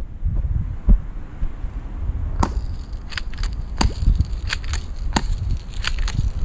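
Spring airsoft pistol (FNS-9 replica) being cocked and fired into pool water: about a dozen sharp, irregular clicks and snaps starting about two and a half seconds in. Under them runs a low rumble, with a low thump about a second in.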